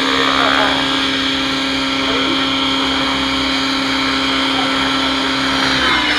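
Radio-controlled 3D helicopter flying overhead, its engine and rotor making a steady whining drone; the pitch dips slightly near the end.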